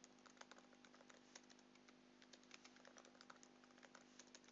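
Faint typing on a computer keyboard: quick, irregular keystrokes, with a faint steady hum underneath.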